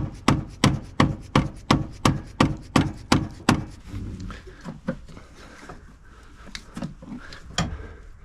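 Dead blow hammer tapping the hinge points of a seized hood latch on a 1948-50 Packard, working it loose. It strikes steadily about three times a second for the first few seconds, then gives fewer, lighter taps.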